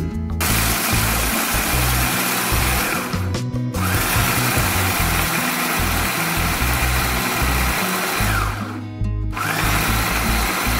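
Motor of a Mitochiba electric food chopper whirring loudly as it grinds roasted peanuts into powder. It stops briefly twice, about three and a half seconds in and near nine seconds, winding down and back up each time. Background music plays underneath.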